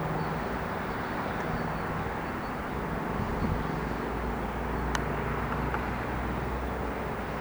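Distant jet engines of a Boeing 737-800 running, a steady rumble with a faint low hum and no rise or fall.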